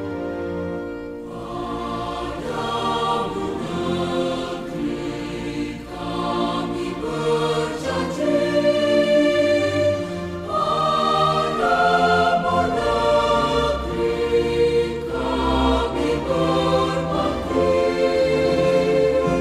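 Background music of a choir singing slow, sustained chords, the notes changing every second or two.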